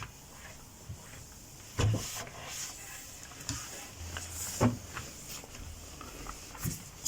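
Handling noise from cleaning a chest of drawers: light knocks, clicks and scrapes, with louder thumps about two seconds in and about halfway through.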